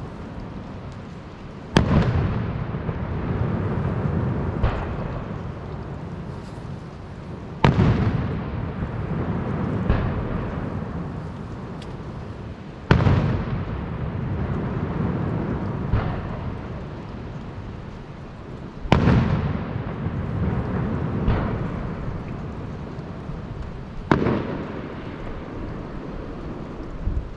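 Firework shells bursting in a display. There is a loud bang about every five to six seconds, five in all, each followed by a long rolling rumble, with smaller pops between them.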